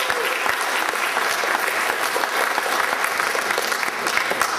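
An audience applauding steadily: many hands clapping at once, with no break until the very end.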